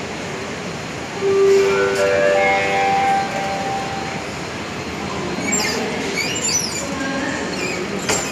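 A multi-note electronic chime rings out about a second in: several held tones step up and overlap for roughly three seconds, like a station public-address chime. Under it runs the steady murmur of a large station hall, with a few faint high chirps near the end.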